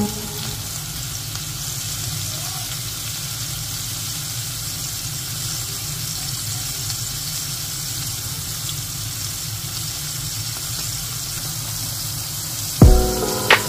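Calamari rings deep-frying in a pan of hot oil: a steady sizzle. Music cuts in abruptly near the end.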